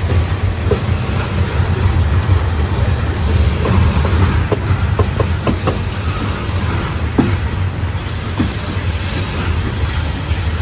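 HO-scale model train, with diesel locomotives and loaded coal hoppers, rolling past over a steady low rumble. Its wheels click irregularly over rail joints and turnouts, with a few short squeals, most of them in the middle few seconds.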